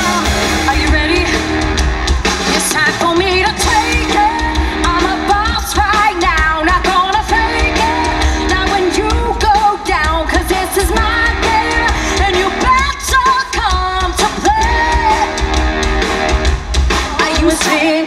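Live pop-rock band playing loudly: a female lead singer over drums, electric guitars and bass, with a steady driving beat.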